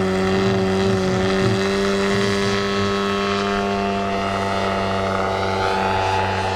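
Hornet HE125 125cc petrol engine of a large RC Carbon Cub model airplane running steadily in flight, driving its 29-inch propeller; the pitch sags slightly near the end.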